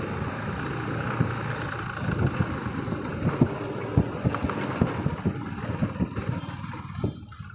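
Bajaj Pulsar NS200 single-cylinder motorcycle engine running as the bike rides slowly over a rough dirt track, with frequent short knocks and rattles. The sound fades away near the end.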